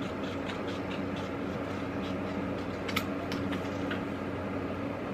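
Steady low background hum with faint scattered small clicks and one sharper click about three seconds in.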